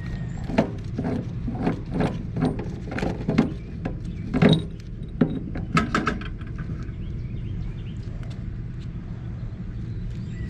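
A run of irregular metal clinks and knocks, some ringing briefly, as galvanized pipe and fittings are handled and worked with tools, over a steady low hum. The clinks die out about six seconds in.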